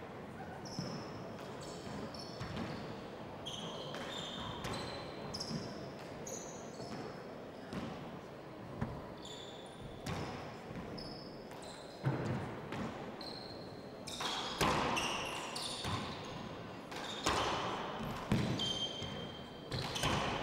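A 40x20 handball rally: the hard rubber ball smacking sharply off the walls and wooden floor with a hall echo, and sneakers squeaking briefly on the court floor as the players turn. The hits come harder and closer together in the second half.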